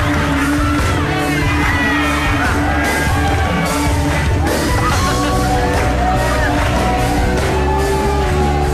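A man singing into a microphone over a loud band backing track, with yells from other performers.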